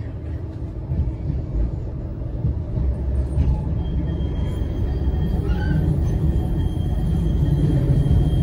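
Blackpool tram running along its track: a steady low rumble that grows slightly louder, with a faint steady high whine coming in about four seconds in.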